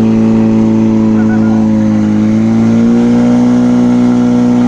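Portable fire pump's petrol engine running at full throttle with a steady high note, pumping water out through the hoses under load.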